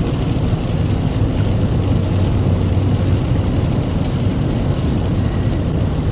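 Steady road and engine rumble heard from inside a moving vehicle, a low even hum with hiss above it.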